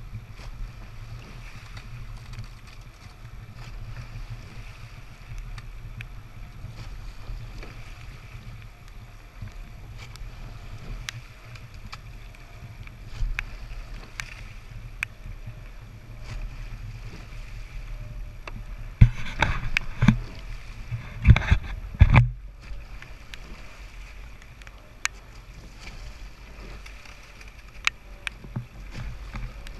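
Eight-oared racing shell being rowed: a steady rush of water and low wind rumble on the microphone, with scattered clicks and a cluster of loud knocks about two-thirds of the way through.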